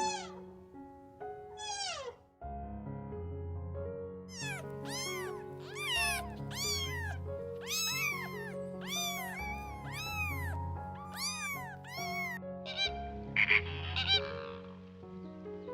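Repeated high, arching animal calls, roughly one a second, over background music with steady chords. Two short falling cries come near the start and a few louder, rougher calls near the end.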